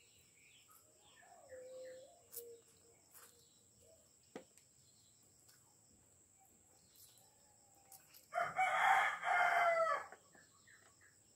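A rooster crowing once, loud and lasting about two seconds, near the end. A fainter, lower call comes about a second and a half in.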